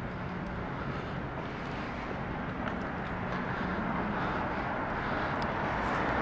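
City street ambience with steady traffic noise and a faint low hum, slowly growing louder.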